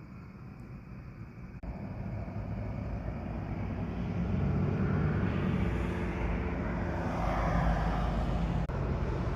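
Low steady traffic rumble. It jumps up in level about one and a half seconds in, and a hiss swells and fades near the middle as a vehicle goes by.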